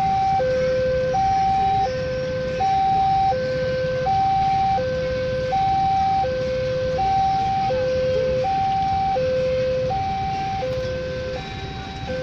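Railway level-crossing warning alarm sounding a steady electronic two-tone signal, high and low tones alternating about every two-thirds of a second, warning that a train is approaching. A low steady rumble lies underneath.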